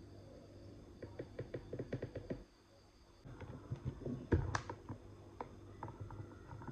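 Runs of small, quick clicks and taps, with one louder knock a little past the middle: a gel nail polish bottle, its cap and brush being handled while a coat of polish is applied.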